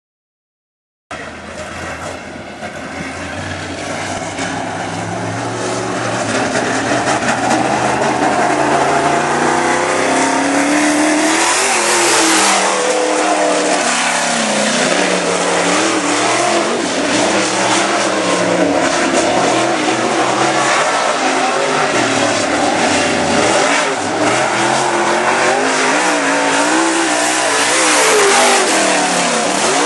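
Dirt late model race car's V8 engine at speed, its pitch rising and falling over and over as the car laps the dirt oval. It comes in about a second in, grows louder over the next few seconds, then stays loud.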